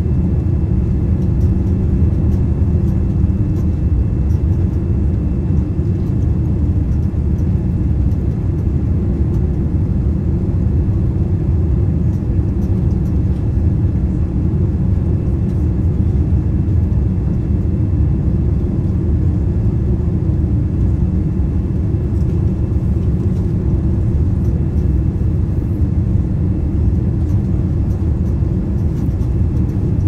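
Boeing 787-9 cabin noise on short final: a steady, loud low rumble of airflow and engines, with the landing gear and flaps extended.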